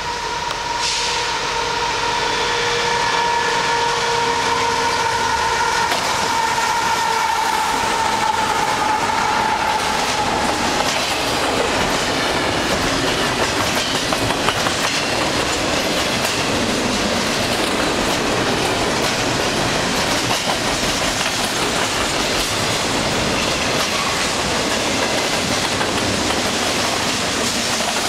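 Freight train locomotives sounding a sustained multi-tone horn chord as they approach and pass, its pitch dropping slightly near the end, about ten seconds long. It gives way to the steady rumble and clatter of double-stack container cars rolling by.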